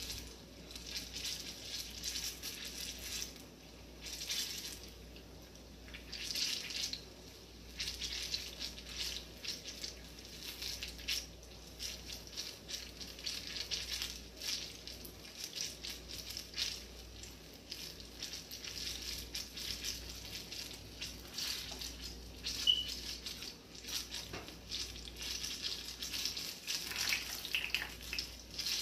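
Plantain puff puff dough balls deep-frying in hot oil in a saucepan: a steady sizzle with irregular crackles. A short sharp click stands out a little past two-thirds of the way through.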